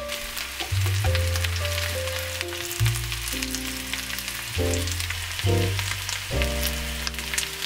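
Smashed boiled potatoes sizzling as they pan-fry, with many small crackling pops, over background music with a bass line.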